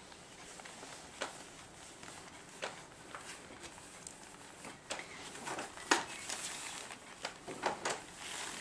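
Newspaper bedding crinkling and rustling under two-week-old Cairn Terrier puppies as they crawl over it, in scattered short crackles. The loudest comes about six seconds in, with a cluster near the end.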